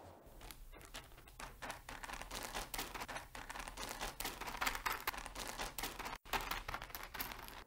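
Footsteps crunching on a gravel floor, a dense irregular crackle over a low steady hum. The sound cuts out for an instant about six seconds in.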